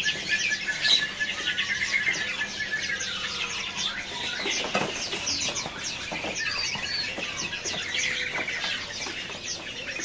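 Many caged songbirds chirping and whistling over one another in a dense, unbroken chorus of short calls, with a few brief wing flutters.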